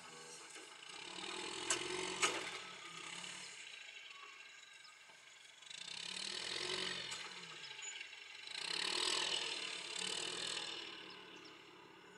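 A Roadrunner hay squeeze running, its mechanical rattle swelling and easing three times, with two sharp metallic clanks about two seconds in.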